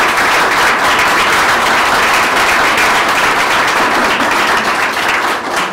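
A room full of people applauding, steady and loud, beginning to die down near the end.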